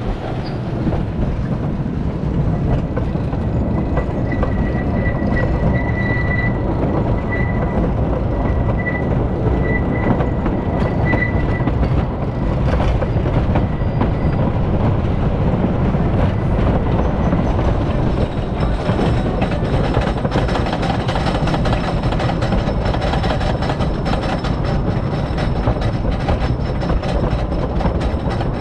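Philadelphia Toboggan Coasters wooden roller coaster train rolling out along the track with a steady wheel rumble and a thin squeal that comes and goes in the first part. From about two-thirds of the way through, the train climbs the lift hill with a fast clatter of clicks, typical of the lift chain and anti-rollback dogs.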